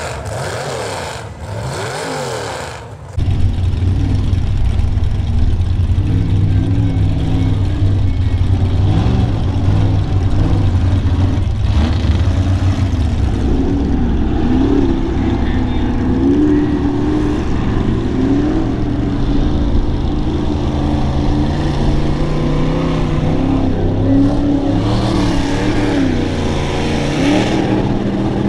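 Full-size Ford Bronco mud truck's engine revving hard, its pitch rising and falling again and again as the truck churns through deep swamp mud and water. A shorter, quieter sound plays for about the first three seconds before the engine comes in.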